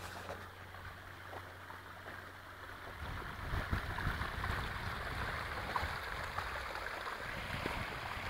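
Water running and splashing down the rocks of a small garden stream cascade, a steady rush that grows louder about three seconds in, when a low rumble joins it.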